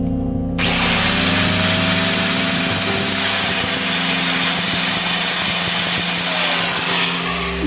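A small power tool runs with a steady whine and dense grinding noise, starting suddenly about half a second in and stopping shortly before the end, over background music.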